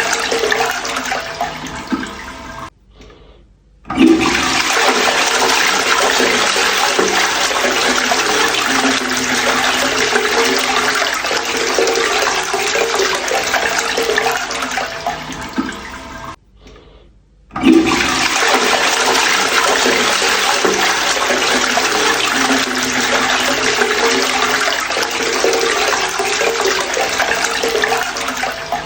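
Toilet flushing, repeated: one flush tapers off near the start, and after a short pause two more flushes of about twelve seconds each begin with a sudden rush of water.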